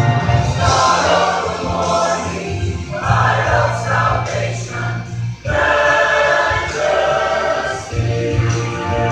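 Mixed church choir of men and women singing together in sustained phrases, with a brief break between phrases about five and a half seconds in.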